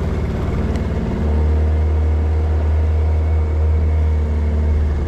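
Outboard motor running steadily as the boat moves, a low hum that gets louder about a second in.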